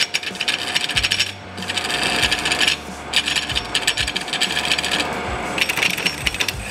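A turning tool cutting a spinning wooden bowl blank on a ShopSmith Mark V lathe: a rapid chattering rasp of wood being roughed, coming in several bursts as the tool is pressed in and eased off, over the steady whine of the lathe's motor.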